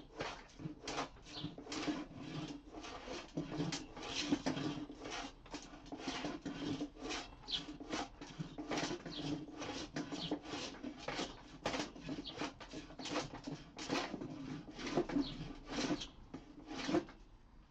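Hand plane strokes across a reclaimed pallet-wood workbench top, a quick, even run of short shaving passes at about two a second as the surface is flattened.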